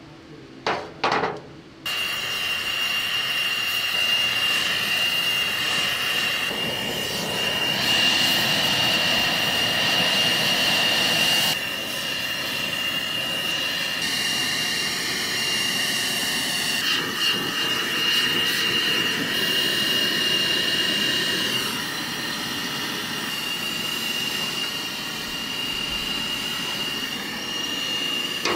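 Two sharp clicks, then an oxy-fuel gas torch flame starts at about two seconds and keeps up a steady loud hiss with a high whistle. The torch is heating a bent steel edge so it can be straightened.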